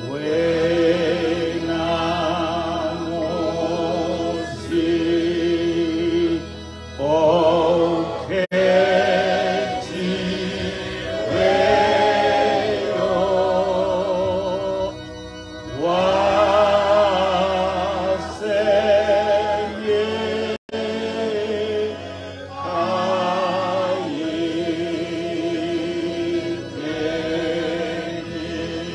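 A man singing a slow Zulu hymn, holding long notes with vibrato in phrases a few seconds long, with short breaks for breath between them.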